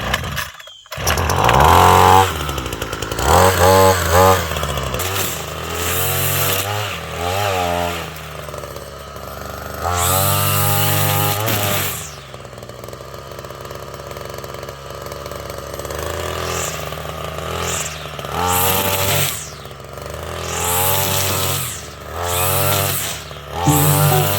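Petrol chainsaw engine revving up and down again and again, dropping back to a steady lower run in between.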